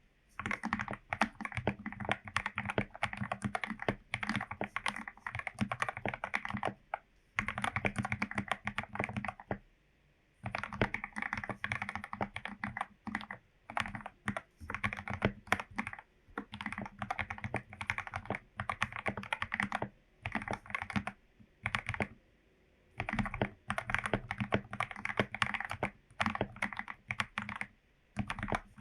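Mechanical keyboard typing: a Royal Kludge RK84 with lubed Gateron Yellow linear switches, keys pressed in fast runs of a few seconds with brief pauses between them.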